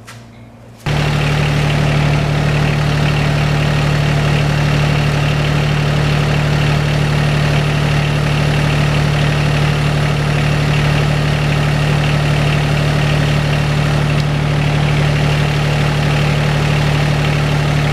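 Rural King RK 19 compact tractor's diesel engine running steadily at idle, cutting in abruptly about a second in.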